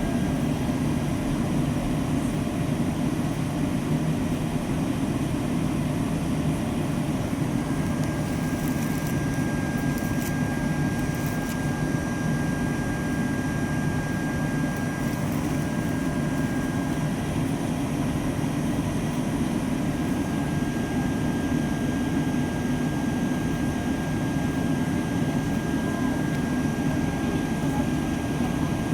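Steady airliner cabin noise: a constant low rush of air and engine hum, with a thin steady high whine running through it.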